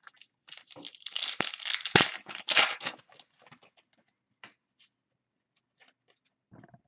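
A trading-card pack's wrapper being torn open and crinkled for about two and a half seconds, followed by light rustling and clicks as the cards are handled.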